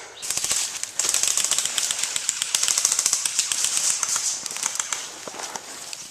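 Airsoft electric guns firing in rapid full-auto strings, a fast rattle of shots that thickens about a second in and tapers off near the end.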